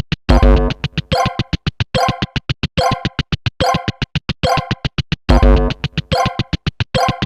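Synthesized counter sound effects: a rapid even ticking, about eight to nine a second, with a brighter electronic blip about once a second. A deep electronic boom sounds twice, near the start and about five seconds in.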